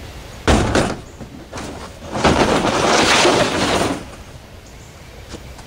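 A large plastic dog crate knocks twice against the pickup's tailgate as it is lifted on, then is pushed along the ribbed bed mat, scraping for about a second and a half.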